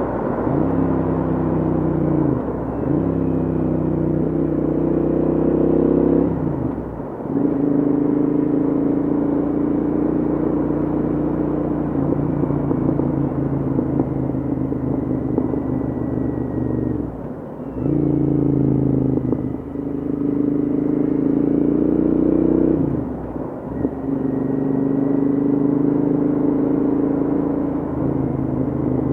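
Royal Enfield Interceptor 650's parallel-twin engine with Hitchcocks headers and short silencers, heard while riding. The exhaust note climbs steadily in pitch as it pulls through the gears, and the throttle is rolled off briefly about seven times, when the exhaust pops and crackles.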